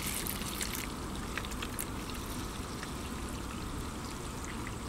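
Apple cider vinegar pouring in a steady stream from a plastic jug into a shallow plastic tray already filling with liquid.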